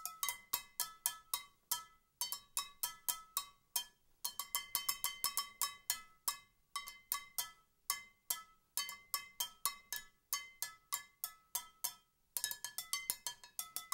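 A skillet struck as a percussion instrument, playing fast strikes that ring at a few fixed pitches. The strikes come in phrases of about two seconds, with brief breaks between them.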